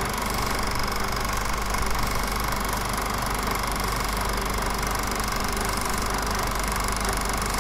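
Steady engine and road noise inside the cabin of a moving car, an even drone that does not change.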